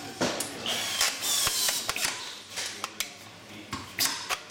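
Power screwdriver giving short whirs that fall away, among sharp clicks and knocks of tools and chair parts being handled.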